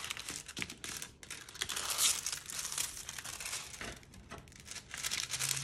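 Clear plastic protective film on a diamond painting canvas crinkling and crackling irregularly as hands unfold the canvas and smooth it flat.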